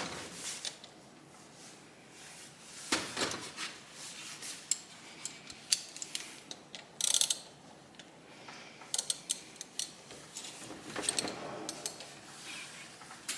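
Metal hand tools clicking and clinking on the 1971 Honda SL125 engine as a 14 mm wrench is fitted to a fastener and worked, in scattered short bursts with a dense run of clicks about seven seconds in.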